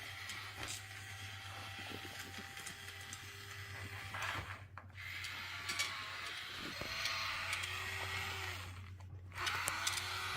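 Quiet scraping and light tapping of small plastic tools digging through kinetic sand, over a steady low hum. The sound cuts out briefly twice, about halfway through and near the end.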